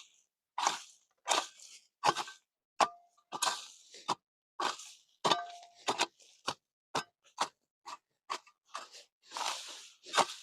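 Repeated chopping blows, about one and a half a second, each a sharp crack with a short crunch. Two of the strikes leave a brief metallic ring.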